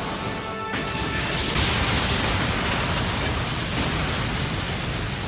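Anime sound effect of an earth-style technique: a steady rushing, rumbling noise of earth and rock moving, swelling about a second in, with background music underneath.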